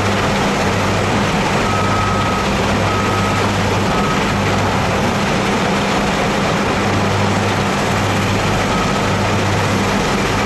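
Wheel loader's diesel engine working under a steady, dense rushing noise. A high reversing alarm beeps a few times in the first half and once near the end.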